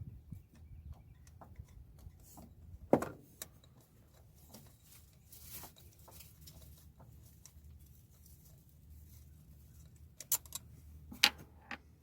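Scattered light clicks and knocks of hand tools working on the mass airflow sensor's Allen screw in the intake, with one louder knock about three seconds in and two sharp clicks near the end. A faint low hum runs underneath.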